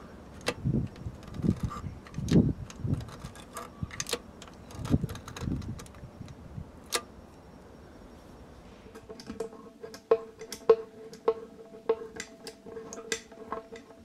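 Tyre plug gun trigger squeezed over and over, each pull a click with a dull clunk, as the plunger drives the mushroom plug into the tyre until it stops. About nine seconds in, background music with an even ticking beat starts.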